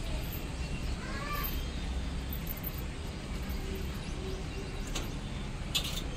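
Outdoor ambience with a steady low rumble; a bird calls once, briefly, about a second in, and there is a short click near the end.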